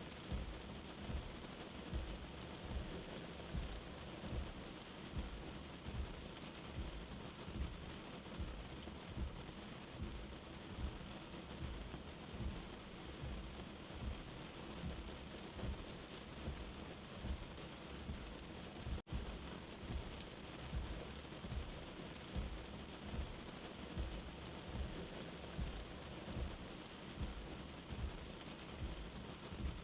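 Steady rain falling, an even hiss, with soft low thuds repeating about once a second underneath. The sound drops out for an instant about two-thirds of the way through.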